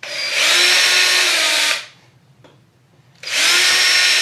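Cordless drill boring pilot holes into a wooden strip: two bursts of steady motor whine, the second starting about three seconds in.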